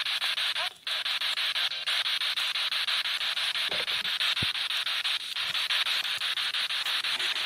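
Spirit box radio static: a steady hiss chopped by rapid, even pulses as the radio sweeps, dropping out briefly about a second in.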